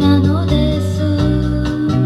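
Recorded pop music with guitar and a strong bass line, played from a 7-inch single on a National console stereo's turntable.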